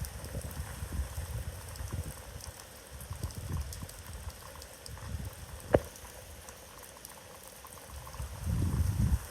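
Storm wind gusting against the phone's microphone in uneven low rumbling buffets, over a steady hiss of rain. A single sharp knock a little past halfway, and a stronger gust near the end.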